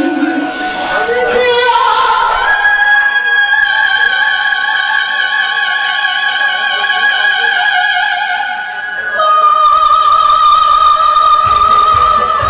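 A woman singing a Vietnamese song into a handheld microphone, holding long notes with vibrato: one long note, then a louder one starting about nine seconds in.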